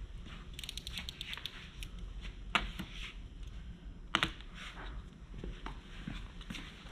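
Plastic protective film being pulled off its roll and pressed onto a vehicle's body panel, crackling and crinkling, with a quick run of crackles about a second in and a few sharp snaps of the film.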